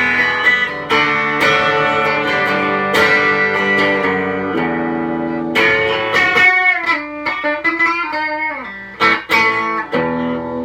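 Stratocaster-style electric guitar played on its bridge single-coil pickup alone, a sound with a bit of a bite: picked notes and chords ringing out, with bent notes gliding in pitch about two-thirds of the way through.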